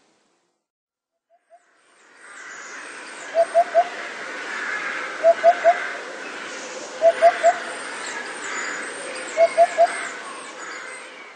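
Nature-sound background track of bird calls: a low three-note call, repeated four times about every two seconds, over a steady hiss of outdoor ambience with thin high chirps. It fades in about two seconds in.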